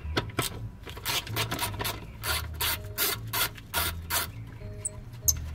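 Hand ratchet with a socket extension being worked back and forth on a fastener under the car. It makes a string of short ratcheting strokes, about three a second, that stops a little after four seconds in.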